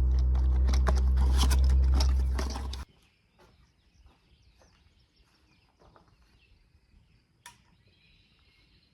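A loud, steady low rumble with crackling cuts off abruptly about three seconds in. What follows is quiet outdoor background with a few faint light clicks and one sharp click near the end.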